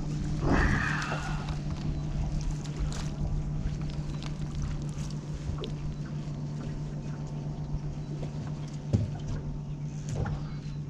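Boat motor running at a steady low hum under a rumble of wind on the microphone, with a brief rush of noise about half a second in.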